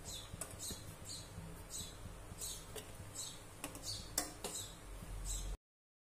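Soft taps of balls of baati dough being set down on a steel plate in a kadhai, one sharper tap about four seconds in. Behind them, short high chirps repeat two to three times a second. The sound cuts off abruptly shortly before the end.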